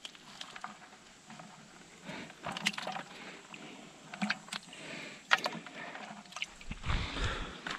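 Hand rummaging in a plastic bucket of live yabbies (freshwater crayfish), with water sloshing and scattered knocks and taps against the plastic. There is a louder stretch of handling noise near the end.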